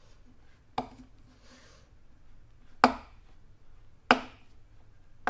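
Four sharp knocks at uneven spacing, each followed by a brief low ring, with a soft scraping rustle after the first.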